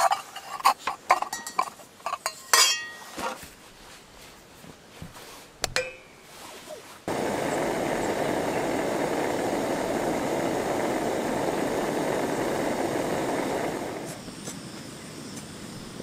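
Metal camp cookware clinking sharply several times, then a gas-stove-heated kettle at the boil: a steady rushing, hissing sound that starts suddenly about seven seconds in and fades about two seconds before the end.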